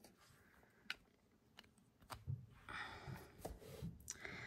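Faint handling sounds of a tablet in a folio case being moved on a desk: a few light clicks and taps, then about two seconds of soft rustling as it is picked up and held.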